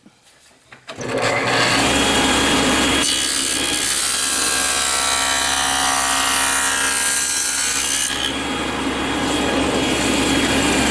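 Table saw coming up to speed about a second in and running, cutting a 3/8-deep rabbet along the edge of a board against a sacrificial fence from about 3 to 8 seconds, then spinning freely again.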